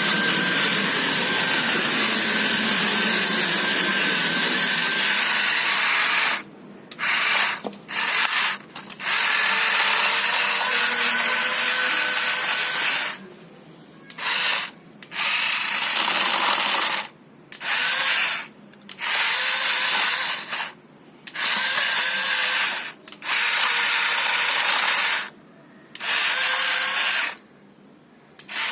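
Small electric motors of a metal RC excavator whirring. They run steadily for about six seconds, then start and stop repeatedly in short bursts as the controls are worked.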